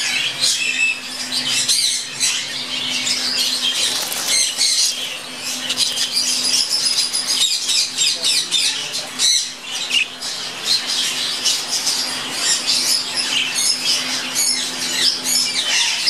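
A flock of caged budgerigars chattering and squawking together: a dense, continuous warble of short chirps and squawks.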